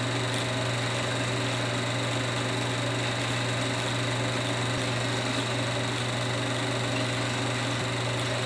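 Steady low hum with hiss from a 16mm film's sound playback running over a blank stretch of soundtrack, with no programme sound.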